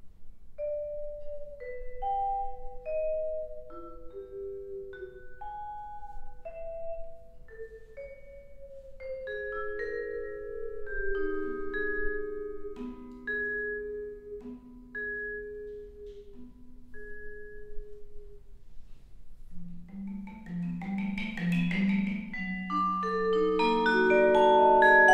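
Solo vibraphone played with mallets: single ringing notes, about one a second at first, that overlap as they sustain. They thicken into layered low notes, then a dense, louder cluster of chords near the end.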